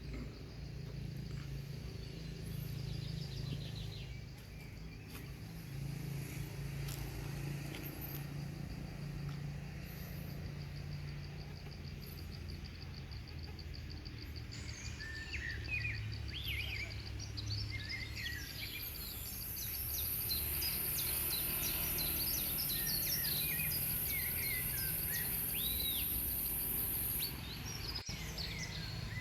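Outdoor ambience with a low steady rumble and birds chirping, the chirps thickening from about halfway through. In the last third a high, steady buzz comes in and cuts off suddenly shortly before the end.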